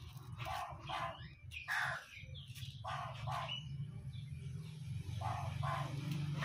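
A crow cawing repeatedly, short harsh caws mostly in pairs, over a steady low hum.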